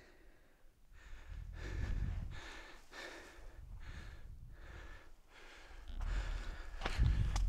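A hiker's heavy, rhythmic breathing, out of breath on the climb, about one breath every second, getting louder near the end.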